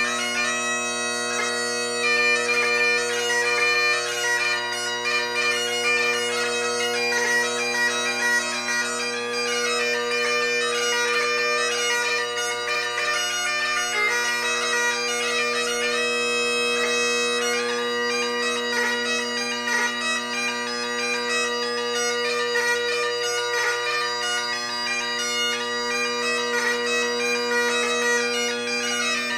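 Great Highland bagpipe played solo: steady, unbroken drones under a fast, ornamented chanter melody.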